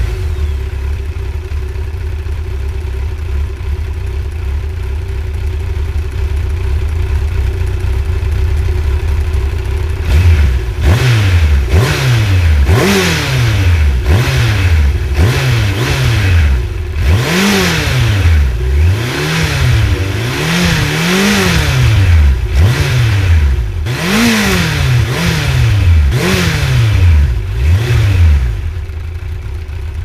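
Yamaha XJ 900 Diversion's air-cooled inline-four idling steadily for about ten seconds. It is then revved again and again in quick throttle blips, each rising and falling in pitch.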